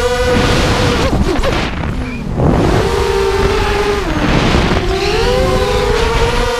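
Racing quadcopter's four brushless motors (DYS MT2206 2300kv on 5045 props) whining. The pitch drops and breaks up into a rush of air about a second in as the throttle changes, then the whine comes back lower, wavers again, and rises to a steady higher pitch near the end.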